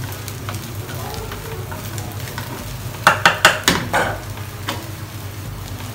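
Fried rice sizzling in a nonstick frying pan as a wooden spatula stirs and turns it, with a quick run of sharp knocks and scrapes of the spatula against the pan about three seconds in.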